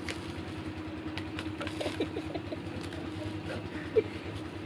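Clear plastic packaging crinkling and rustling in the hands as a small boxed item is slid out of its bag, over a steady low hum. A short knock about four seconds in.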